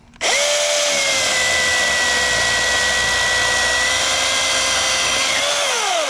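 Milwaukee M18 Fuel battery chainsaw starting up and running at a steady high whine as its new Oregon 16-inch bar and chain cuts through a small log, the pitch holding steady without binding; near the end the trigger is released and the motor winds down with a falling whine.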